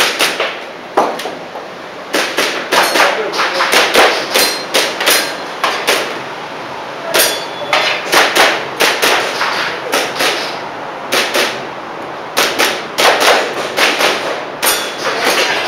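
Airsoft pistol shots fired in quick strings, with BBs clanging on steel targets, each string of several rapid sharp cracks separated by short pauses.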